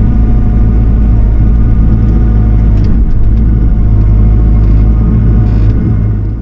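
Diesel engine of a piece of heavy equipment running steadily under load, a deep, loud rumble that fades out near the end.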